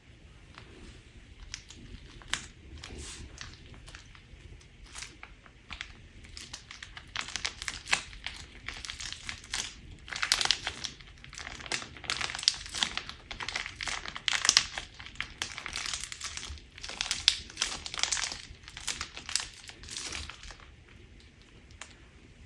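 Crunchy slime being squeezed and worked by hand, giving a crackle of many small pops and clicks. It begins as scattered clicks, becomes a dense crackle through the middle, and stops shortly before the end.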